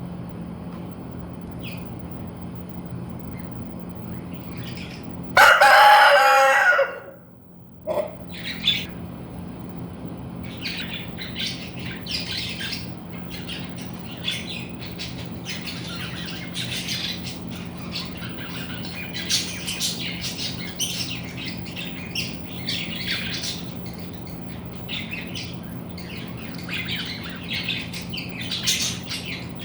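A rooster crows once, loudly, about five seconds in, for about a second and a half. For the rest of the time many short, high bird chirps come and go over a steady low hum.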